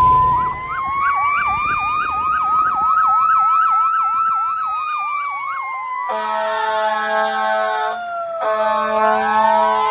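Fire engine sirens: an electronic yelp sweeping up and down about three times a second over a slower wail that rises and falls. The apparatus air horn then blasts twice, from about six seconds in with a short break near eight seconds, while the siren tone slides down and back up.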